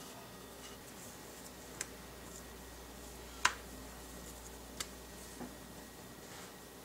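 Three short, sharp clicks, the loudest about halfway, and a softer knock near the end, from a cookie cutter being pressed through puff pastry dough against the countertop.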